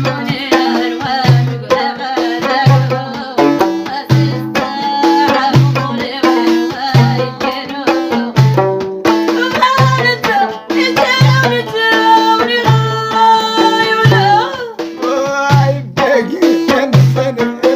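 Folk song music: a melodic instrumental line over a low drum beat that strikes about every second and a half, with a few long held notes a little past the middle.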